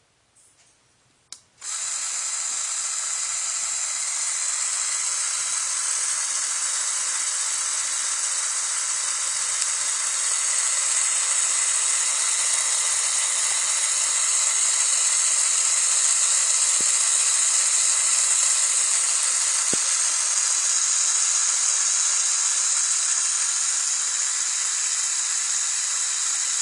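Lego Power Functions motor driving the gear train of a door mechanism, a steady whirring gear whine that starts abruptly about a second and a half in and holds level.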